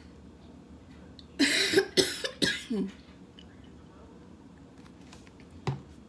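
A person coughing, a short fit of about four coughs in quick succession, followed near the end by a single short thump.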